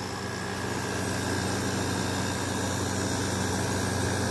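Arctic King 5000 BTU window air conditioner running on low cool, its compressor humming steadily under the rush of the fan, swelling slightly in the first second. The compressor sounds smooth and healthy: the unit works.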